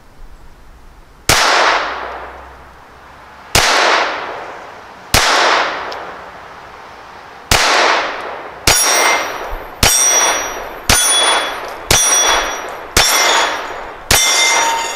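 Ten gunshots at a steel target. Four come a couple of seconds apart, then six at about one a second, and each of the last six is followed by the steel gong ringing from the hit.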